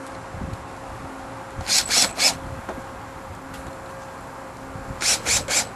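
Cordless drill driving self-tapping screws through a stainless steel template into a bumper cover, in two sets of three short spurts about three seconds apart.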